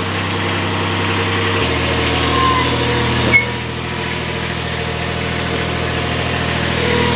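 Toro Greensmaster 3250-D's diesel engine idling steadily just after starting, fitted with a new exhaust muffler. Its low note shifts about a second and a half in, and a short knock comes a little after three seconds.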